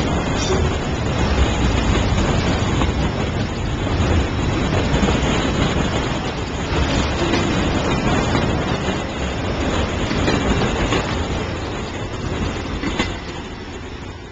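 Freight train of autorack cars rolling past close by: steady wheel-and-rail rumble with an occasional click from the wheels. The noise fades over the last couple of seconds as the tail of the train goes by.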